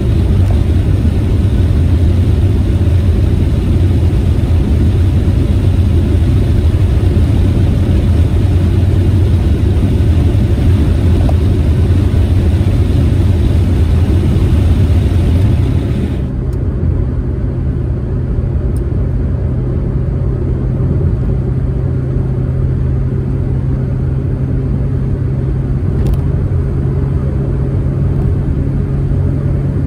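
Proton Saga driving, heard from inside the cabin: a steady mix of road and wind noise with a low engine drone. About sixteen seconds in the hissing noise drops off suddenly and a steady, lower engine hum carries on.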